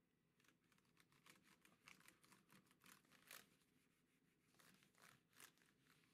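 Faint rubbing and scratching of a damp Clorox disinfecting wipe scrubbing over a Lenovo 100e Chromebook's keyboard and body: a quick run of short swipes, with the loudest strokes about three seconds in and again near five seconds.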